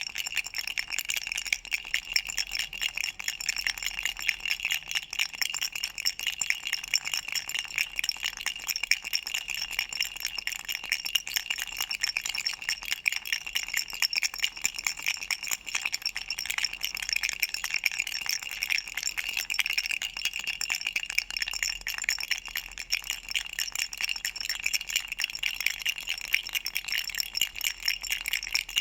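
Duck-shaped baby rattle toy shaken without a break: a fast, dense rattle with a bright ring to it.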